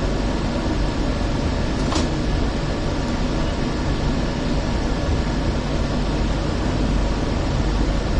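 Steady running noise inside a Hong Kong Peak Tram car, a cable-hauled funicular, as it rolls down the track. There is one brief sharp squeak about two seconds in.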